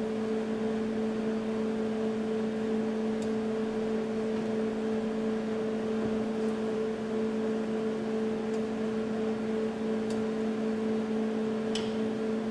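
Steady machine hum with two level tones, with a few faint light clicks over it.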